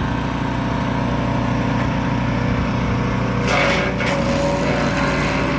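Garden wood chipper running steadily and chipping freshly cut green branches, with a louder burst of chipping about three and a half seconds in.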